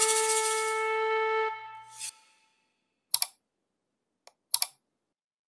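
The last held note of a flute-like woodwind melody fades out. Then there is a short swish, followed by two pairs of sharp mouse-click sound effects from a subscribe-button animation, the first a little after three seconds in and the second about four and a half seconds in.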